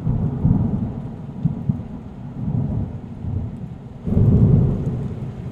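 Low rolling thunder rumbling, which swells again about four seconds in.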